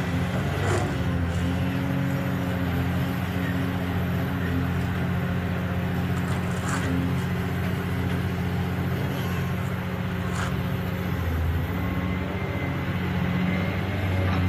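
A steady low mechanical hum with an even, unchanging pitch, with a few faint sharp clicks over it.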